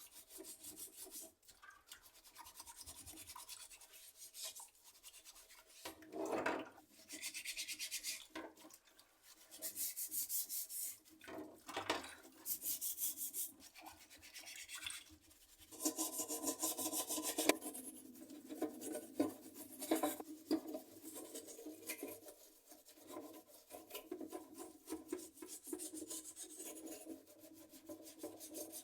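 Keyboard parts being scrubbed with a brush: stretches of quick, rasping strokes broken by short pauses.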